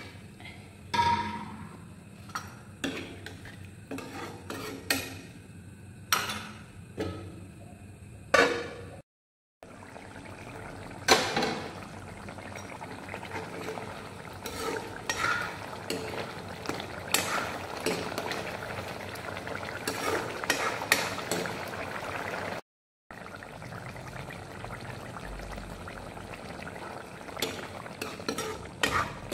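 Fish and tomato curry simmering in a steel wok while a metal spoon knocks and scrapes against the pan as it stirs. There are sharp clinks through the first third, then a steady bubbling haze with occasional knocks. The sound drops out to silence twice, briefly.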